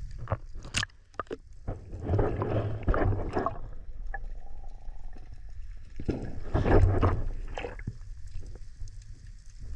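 Splashing as snorkellers duck under the surface, then muffled underwater sloshing and gurgling heard from a camera in the water, coming in a few uneven surges with a faint hum between them.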